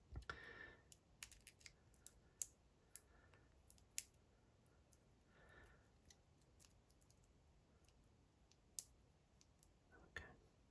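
Sparse, faint small clicks and light ticks of metal tools against a DOM IX Saturn dimple lock cylinder, irregularly spaced with quiet gaps between. A shim is being worked into the lock to take it apart.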